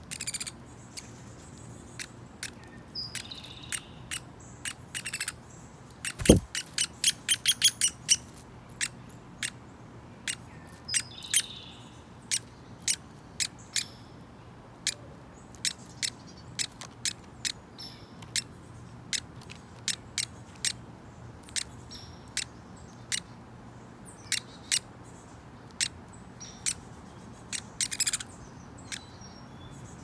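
Downy woodpeckers, an adult male and its fledgling: many sharp short ticks at irregular spacing, with a fast run of them about six seconds in, and a few soft high chirping calls from the young bird between. A single low thump comes just before the fast run.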